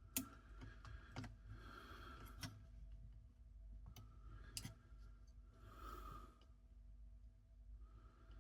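Faint, scattered light clicks of small cassette-deck transport parts being handled and fitted, about four sharp ones, with soft breaths between.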